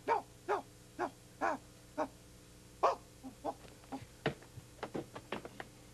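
Short, repeated animal-like vocal yelps from a hand puppet, voiced by its puppeteer, about two a second at first. They are followed by a scatter of quick clicks and knocks, one sharper knock a little after four seconds in.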